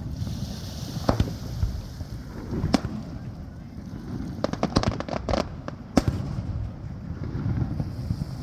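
Fireworks display: shells bursting with sharp bangs at irregular intervals, the loudest about six seconds in, and a quick run of crackling pops just before it, over a steady low rumble.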